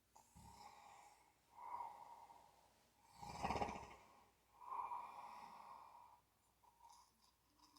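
Quiet snoring of a sleeper: four slow breaths in a row, the loudest a little past halfway with a fluttering snore, then faint short breath sounds near the end.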